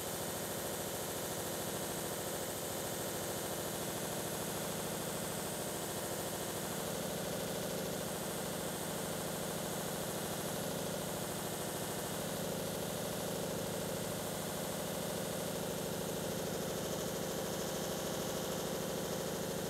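Pedestal buffer running at constant speed: its motor hums evenly and the cloth buffing wheel spins.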